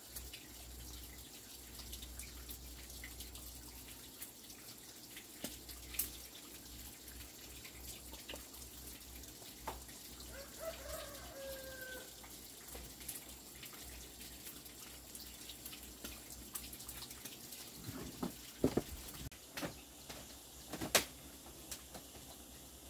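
Faint scattered clicks and drip-like taps, with a short falling bird call about eleven seconds in.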